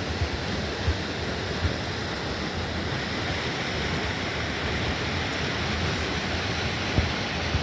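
Steady rush of a fast mountain river.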